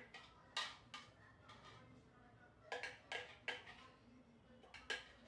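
Seven or eight light, scattered taps and clicks of a plastic container knocked against a mixing bowl as chopped coriander is shaken out of it.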